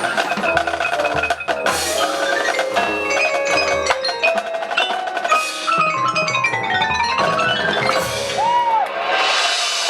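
High school marching band's percussion section playing, with quick mallet runs on marimba, xylophone and glockenspiel climbing and falling over drums, and several loud crashes.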